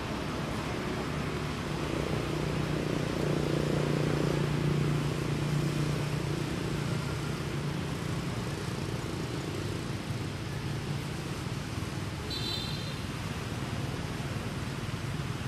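A motor vehicle's engine hum swells over a few seconds and then fades away, over a steady background hiss. A brief high chirp sounds near the end.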